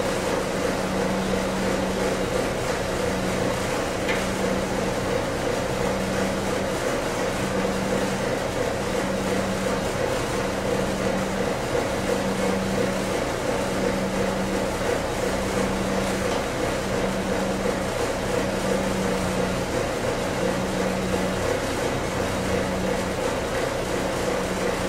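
Steady mechanical hum, like a running fan, with a low tone that pulses on and off about once a second.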